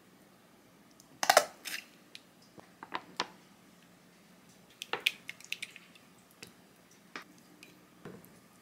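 Scattered short clicks and scrapes of food preparation: a silicone spoon knocking and scraping in a glass Pyrex measuring cup as mayonnaise and buldak sauce go in, and near the end a knife sliding diced salmon off a wooden board.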